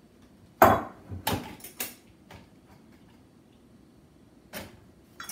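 A few short knocks and clinks of glass kitchen jars and a measuring spoon being handled and set down on the counter. The sharpest knock comes about half a second in, a few lighter clinks follow over the next two seconds, and one more comes near the end.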